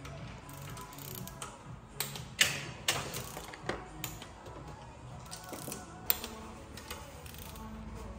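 Ratchet wrench clicking in short, irregular runs as bolts on a cylinder head are turned, with background music underneath.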